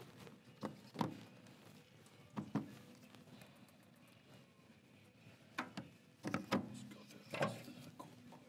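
Several sharp knocks and clunks of drink cans and a bottle being handled and set down around golf carts.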